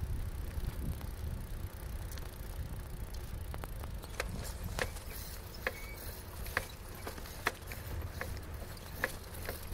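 Bicycle towing a kayak rolling along asphalt: a steady low rumble of wind and tyre noise, with scattered sharp clicks and rattles from about four seconds in.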